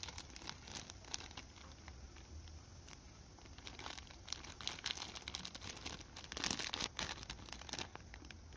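Faint crinkling of a clear plastic toy package handled in the hands, with scattered small crackles, busiest about six to seven seconds in.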